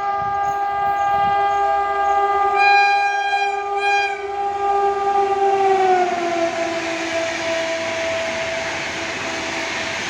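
Gatimaan Express locomotive sounding a long, steady horn as the train passes at speed. The horn is louder for a moment about 3 to 4 seconds in, and its pitch drops about 6 seconds in as the locomotive goes by. It then fades while the rushing noise of the speeding train grows.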